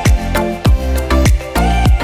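Background music with a steady beat: a deep kick drum that falls in pitch about every half second, under bass and a melody.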